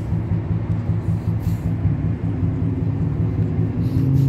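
A vehicle engine idling steadily, a low continuous hum with a slight shift in pitch near the end.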